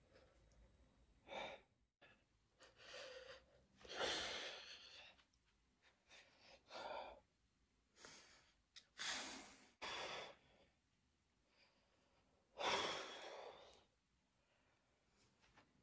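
A man breathing out hard in separate, forceful breaths, about eight of them spread out with quiet between, the strain of flexing his muscles. The longest and loudest breaths come about four seconds in and near the end.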